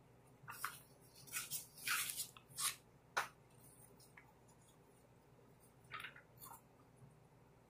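Paper sheets rustling and crinkling as they are handled: several short rustles in the first three seconds ending in a sharp crackle, then another brief rustle about six seconds in.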